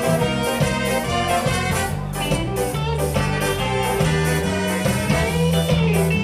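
Ska band playing live: a horn section of saxophones, trumpet and trombone over electric guitar, bass, keyboards and drum kit, with a steady beat and regular cymbal strikes.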